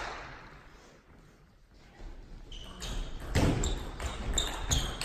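A table tennis ball bouncing several times from about halfway in, each bounce a light click with a short high ping.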